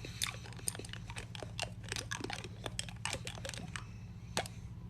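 Crunchy chewing: irregular crisp bites and crunches over a low steady hum.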